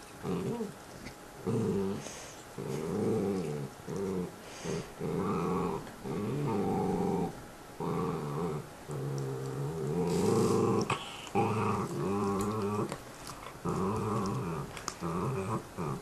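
Small mixed-breed dog growling over its bone: a string of low growls, each half a second to a second and a half long, with short breaks between them.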